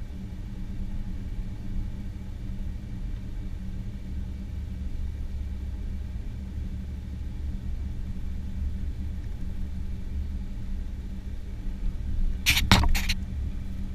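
Vehicle driving along a paved road: a steady low rumble of engine and road noise with an even hum. Near the end, a short cluster of sharp clicks or rattles stands out as the loudest sound.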